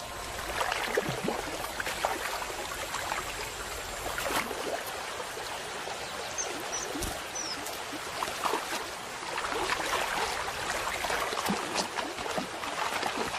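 Shallow river running over stones, a steady trickling with scattered small splashes. A few short high bird calls come about six to seven seconds in.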